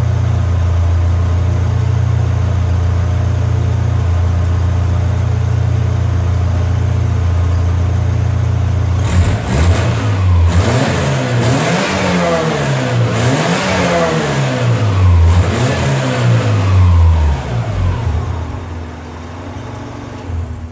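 1997 Subaru Legacy wagon's 2.2-litre flat-four engine idling steadily, then revved in several quick blips before settling back and shutting off near the end. This is its first run after a new radiator and thermostat.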